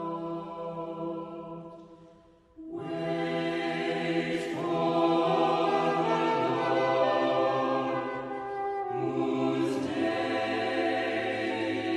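Background music in a choral, chant-like style with long held chords. One phrase fades out about two seconds in, a new one begins shortly after, and another starts about nine seconds in.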